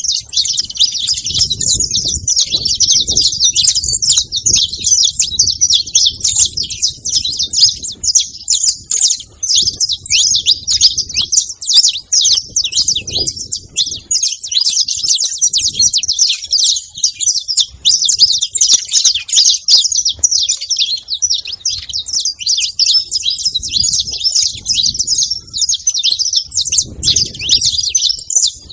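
A flock of saffron finches chirping and singing over one another without a break, a dense high-pitched chatter.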